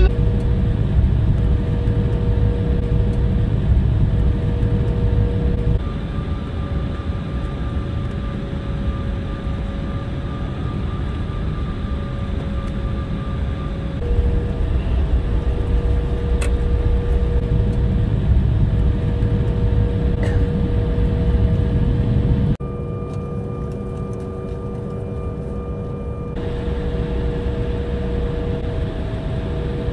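Jet airliner's engines running at taxi power, heard from inside the passenger cabin: a steady low noise with a thin, steady whine over it. The sound shifts abruptly several times.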